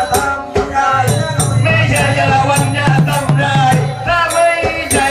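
Southern Thai Nora ensemble music: quick, sharp percussion strikes, low pitched drum notes, and a wavering melodic line over them.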